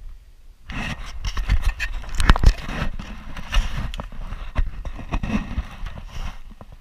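Loud scraping and crackling with many sharp clicks, starting under a second in and stopping near the end.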